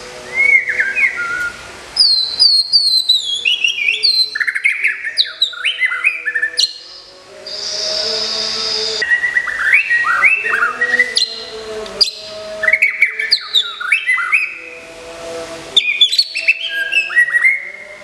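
White-rumped shama singing: fast runs of clear, sharply falling whistled notes in several phrases with short breaks between them. A steady high-pitched hiss fills one break about eight seconds in.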